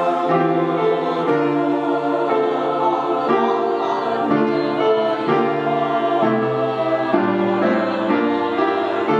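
Mixed high-school choir singing sustained chords, the harmony moving to a new chord about once a second.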